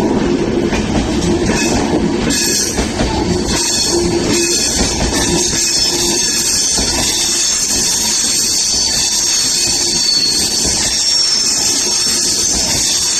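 Express train, hauled by a WAP-7 electric locomotive, passing close by at speed: a loud steady rolling sound with rapid clickety-clack of wheels over rail joints and a brief high wheel squeal about ten seconds in.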